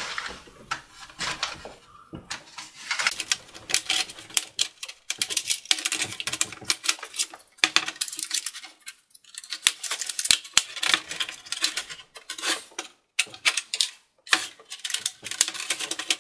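Plastic palm rest of a Lenovo ThinkPad T530 being pried off with a plastic guitar pick: dense runs of clicks and crackles as its clips snap loose, with a few short pauses.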